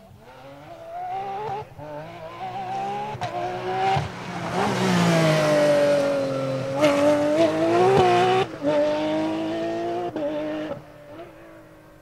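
Porsche 911 GT3 rally car's flat-six engine at full throttle, climbing in pitch through several upshifts as it approaches. It passes close with a drop in pitch and a wash of gravel noise from the tyres. It then lifts and changes down twice before fading away.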